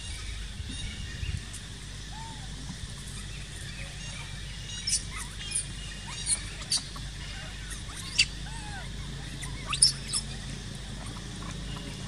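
Short, sharp, high-pitched animal squeaks and chirps, about seven between the middle and near the end, with a few fainter gliding calls, over a steady low outdoor hum.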